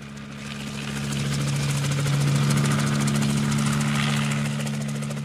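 Helicopter flying past: a steady engine drone with a rapid rotor beat, growing louder toward the middle and easing off near the end.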